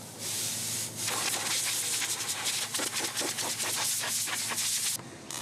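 Rough scraping, rustling noise with many small irregular clicks. It grows louder about a second in and stops suddenly near the end.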